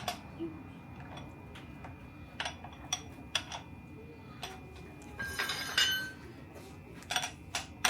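Irregular metallic clicks and clinks of a wrench working a nut on a children's bike, with a denser flurry of clinks about five to six seconds in.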